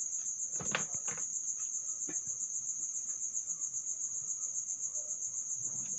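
Crickets chirping in a steady, high, finely pulsing trill, with a few faint knocks and rustles in the first couple of seconds.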